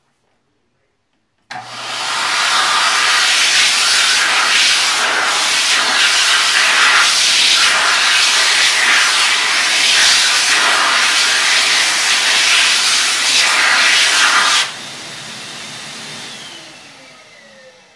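Xlerator high-speed hand dryer switching on abruptly and blowing loudly and steadily over hands held in the airflow. About thirteen seconds later the hands pull away and the sound drops to a quieter whir, then the motor winds down with a falling whine near the end.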